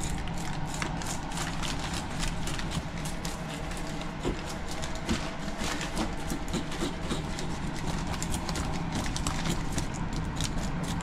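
Plastic bag crinkling and rustling in quick, irregular crackles as gloved hands handle fish inside it, over a steady low hum.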